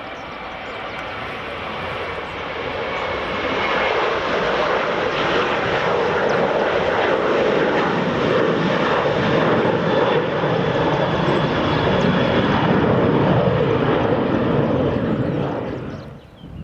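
Airliner engines running at high power, swelling over the first few seconds to a steady loud peak, then cutting off abruptly near the end.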